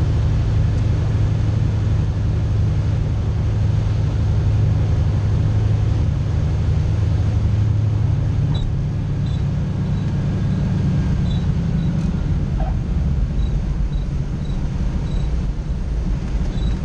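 De Havilland DHC-2 Beaver's engine and propeller droning, heard inside the cockpit while landing; the low drone is steady, then eases off a little past the midpoint.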